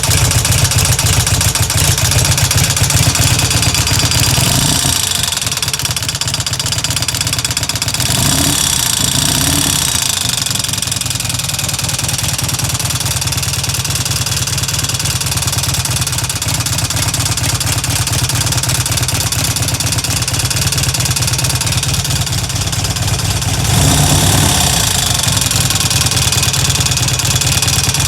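Harley-Davidson Evolution air-cooled V-twin engine idling with a ticking sound, revved briefly about four seconds in, twice around eight to ten seconds, and again near the end.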